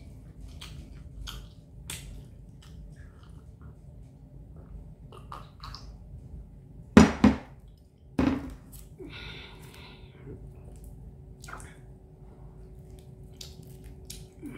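Eating and drinking sounds: milk sipped from a mug and food being chewed, with small mouth clicks throughout. Two sharp knocks about seven seconds in and a third a second later are the loudest sounds.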